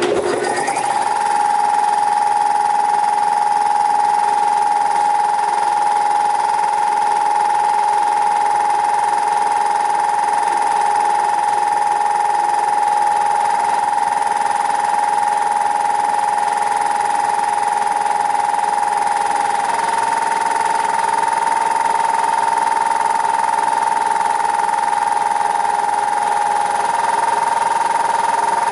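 Belt-driven air compressor starting up and running steadily, its pump newly bolted to a quarter-inch steel mounting plate to stop it bouncing. A steady loud whine over the running noise, its pitch stepping up slightly about two-thirds of the way through and again near the end.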